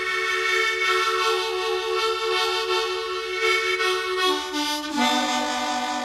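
Harmonica playing long held chords, moving down to a lower chord about four to five seconds in.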